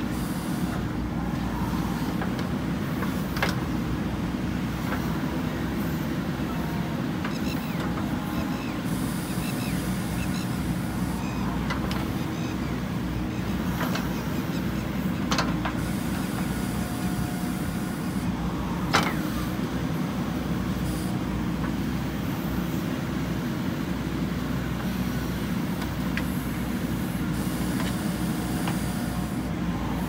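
JCB 3DX backhoe loader's diesel engine running steadily under working load as the backhoe arm digs and moves soil. A few sharp knocks stand out over the engine, the loudest about a third of the way through and again near two thirds.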